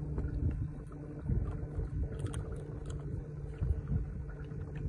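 Wind rumbling on the microphone in uneven gusts, with a few low bumps, over a faint steady hum.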